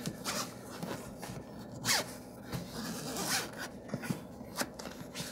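Zipper of the HoloLens's zip-around clamshell carrying case being pulled open around its edge, in short rasping pulls with a few clicks.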